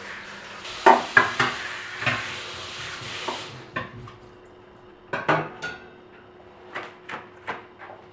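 Dishes and cutlery clinking and knocking together as kitchenware is handled, a dozen or so separate sharp clinks. A steady hiss runs under the first clinks and cuts off about three and a half seconds in.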